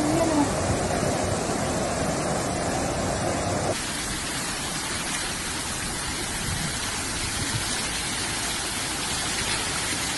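Steady rushing noise of floodwater flowing through flooded streets and yards. The sound changes abruptly about four seconds in, from a fuller, lower rush to a thinner hiss.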